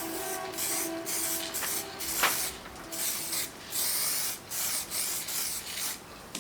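Sandpaper being worked back and forth over cured body filler on a truck panel, a steady run of short scratchy strokes about one or two a second.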